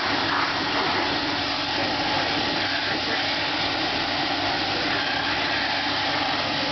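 Chevrolet S-10 Blazer's engine running steadily with an even mechanical hum.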